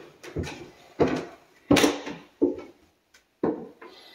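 Footsteps going down a wooden staircase: a series of footfalls about two-thirds of a second apart, the loudest near the middle, slowing and fading near the end.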